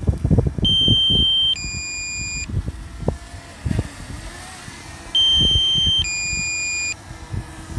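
DJI Mini 2 low-battery warning alarm: a two-tone electronic beep, a higher tone then a lower one, each under a second. It sounds twice, about four and a half seconds apart. Low knocking and rustling at the microphone run underneath.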